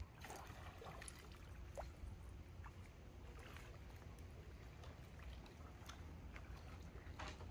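A few faint, soft splashes of a double-bladed kayak paddle dipping into calm water as the kayak is paddled away, over a low steady rumble.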